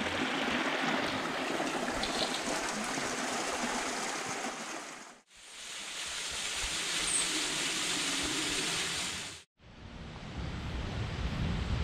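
Rushing water of a mountain valley stream, heard in two short clips with abrupt cuts to silence between them. A final clip near the end holds mostly a low rumble instead.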